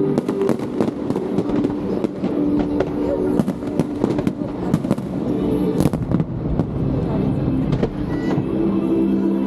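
Aerial fireworks bursting in a dense, rapid series of bangs and crackles, several a second throughout, with music playing alongside.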